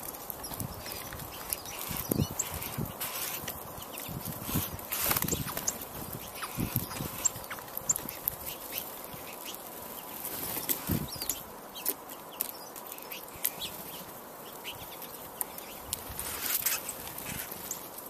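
Small songbirds at a seed feeder: scattered short, sharp chip calls throughout, with a few soft low thumps, over a steady background hiss.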